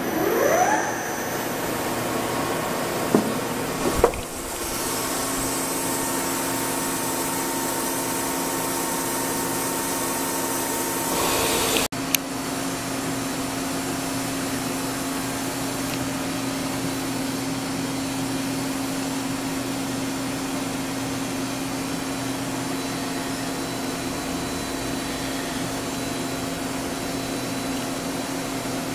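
Doosan DBC-130L-II CNC horizontal boring mill running its spindle: a whine rising in pitch in the first second, then a steady hum with a hiss over it, with a brief break about twelve seconds in.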